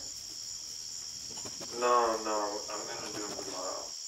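Crickets chirping steadily in a fast, even pulse. About a second and a half in, a muffled voice-like sound rises and falls briefly over them.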